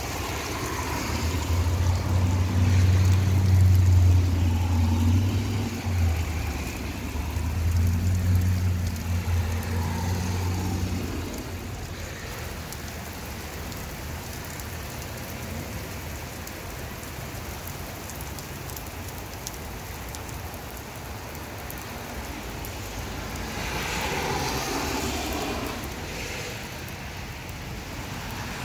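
Heavy rain falling steadily, with a strong low rumble through the first ten seconds or so and a swelling hiss around twenty-four seconds in, like tyres passing on the wet road.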